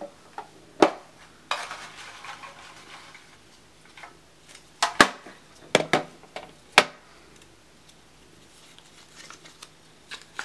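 Sharp clicks and clinks of a jar being handled as a hand rummages through the folded paper slips inside it, with a scratchy rustle early on and a cluster of knocks in the middle. Near the end, soft rustling of a paper slip being unfolded.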